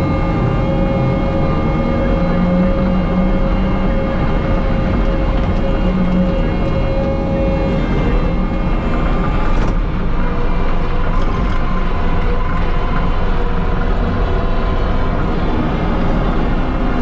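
Kubota track loader's diesel engine running at high revs with a steady hydraulic whine while working a stump grapple bucket into a stump. The tones shift slightly around the middle.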